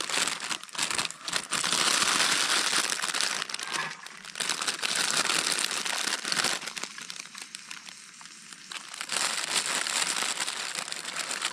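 Plastic packaging of a bagged salad kit being handled and crinkled, in irregular crackly spells, with a quieter stretch about two thirds through.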